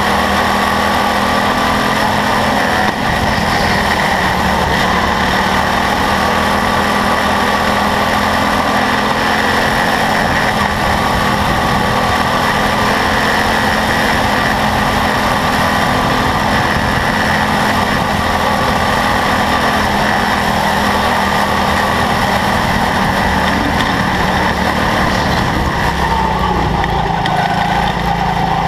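Quarter midget race car engine running continuously at racing speed, heard from onboard the car as a loud, steady drone; near the end one tone slides lower.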